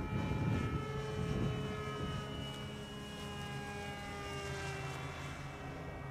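Brushless electric motor (E-flite Power 25) and pusher propeller of a radio-controlled X-29 parkjet whining in flight overhead, the pitch of the whine falling slowly. A low rumble of wind on the microphone is strongest in the first second and a half.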